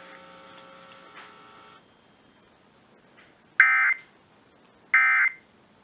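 Emergency Alert System end-of-message data bursts (the SAME "NNNN" code): two short, identical buzzy bursts of digital tone, each about a third of a second long and a little over a second apart, about halfway through. A faint steady hum sounds for the first couple of seconds, then stops.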